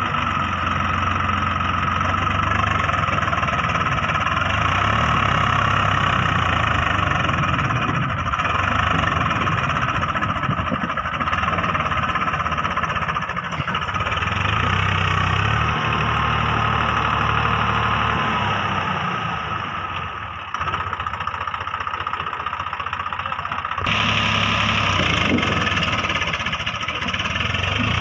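Swaraj 744 FE tractors' three-cylinder diesel engines running hard under load, their level swelling and easing, as a tractor bogged in deep mud is worked free.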